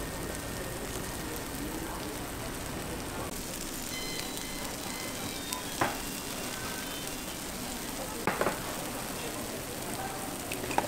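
Steady sizzle of batter and fillings cooking on a hot bungeoppang (fish-shaped bread) iron, with a sharp clink about six seconds in and a quick pair of clinks a couple of seconds later.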